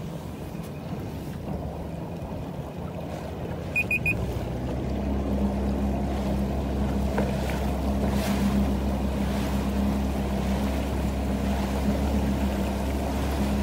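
Yamaha FX SVHO jet ski's supercharged four-stroke engine running slowly with a steady low hum. About four seconds in come three quick electronic beeps, and then the engine gets louder as a little throttle is added.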